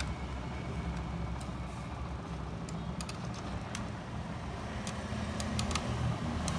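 Scattered light clicks as a small bracket is taken off a laptop DVD drive, heard over a steady low rumble.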